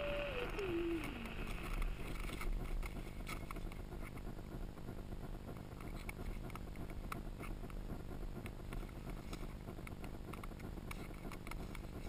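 Faint rustling of clothing and gear close to the microphone, with scattered light clicks. In the first second a single falling tone ends the music.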